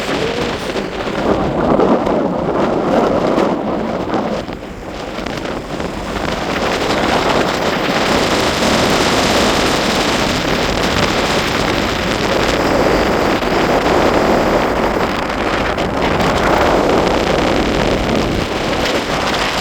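Strong wind buffeting the microphone in loud, uneven gusts, easing briefly about five seconds in before rising again.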